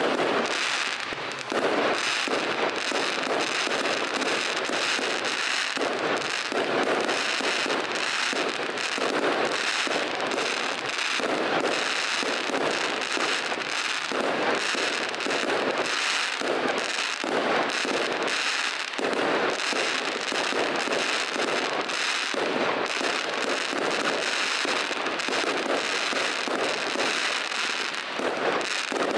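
Fireworks display: aerial shells and crackling stars bursting overhead in a rapid, unbroken run of bangs and crackles.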